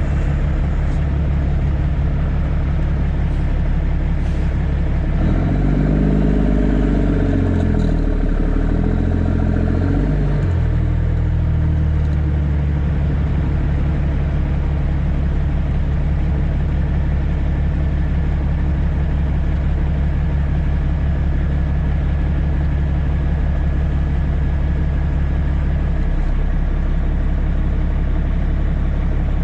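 CAT C13 diesel engine of a Kenworth W900B dump truck running under load. Between about five and ten seconds in, the engine note climbs and drops a few times as it goes through gear changes, then holds a steady note for the rest.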